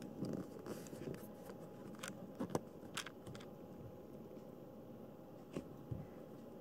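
Quiet room with soft rustles of fleece blanket and pet-bed fabric, broken by a handful of light clicks and a soft low thump near the end.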